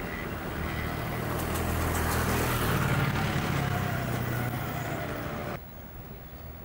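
Motor scooters riding past, their engines growing louder to a peak about three seconds in and then easing off. About a second before the end the sound cuts off suddenly to a much quieter, calm waterside hush.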